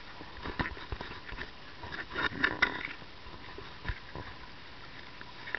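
Water slapping and knocking against the hull of a small wa'apa outrigger sailing canoe under way in choppy sea, over a steady rush of wind and water. The knocks are irregular, with a louder cluster about two seconds in and single thuds later.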